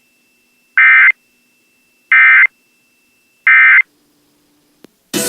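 Emergency Alert System end-of-message data tones over FM radio: three identical short buzzy digital bursts about a second and a quarter apart, marking the end of the alert. Music starts right at the end.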